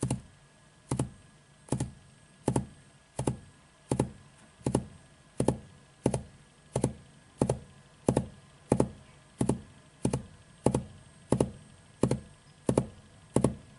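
A steady series of sharp knocks, about one and a half a second, quickening slightly toward the end.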